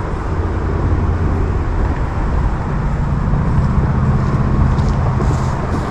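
Steady low engine rumble with a low hum that comes up for a couple of seconds after the middle.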